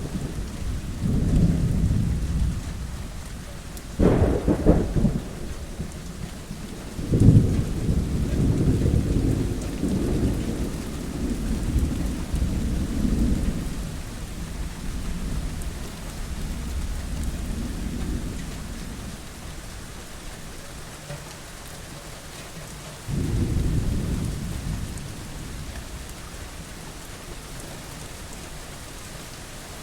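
Steady rain in a thunderstorm, with rolls of thunder: a sharp crack about four seconds in, a long rolling rumble starting a few seconds later, and another shorter rumble near the end.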